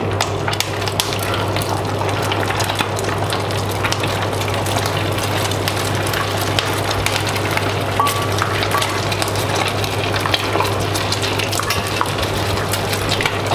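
Beaten egg poured into a pot of very hot deep-frying oil, the oil sizzling and crackling hard and steadily as the egg puffs up. Under it runs the steady low hum of a kitchen extractor fan.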